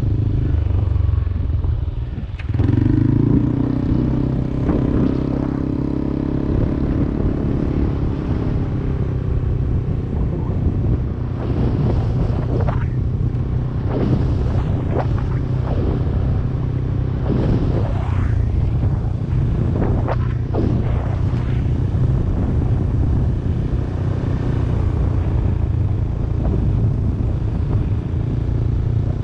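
Yamaha Aerox 155 scooter's single-cylinder engine running steadily while riding, easing off briefly about two seconds in and then picking up again. Wind gusts buffet the microphone several times in the middle.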